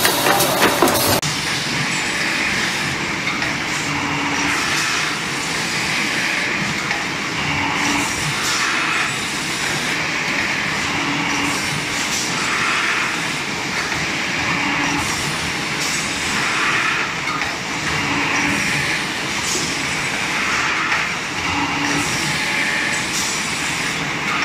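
Small automatic paper core cutting machine running: a steady mechanical clatter with a cutting and feeding cycle that repeats about every two seconds as paper tubes are cut into short cores.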